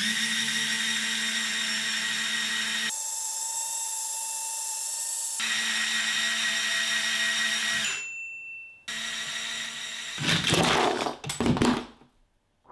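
A LEGO electric motor drives the train's pinion along a toothed rack: a steady, drill-like whine with gear chatter. It breaks off briefly, then returns with loud irregular clattering near the end, as the drive fails on the steep climb.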